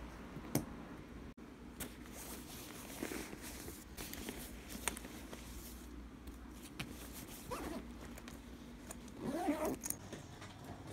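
Handling noise from packing and moving about with a backpack: scattered light clicks, rattles and rustles. A short wavering pitched sound comes about nine and a half seconds in.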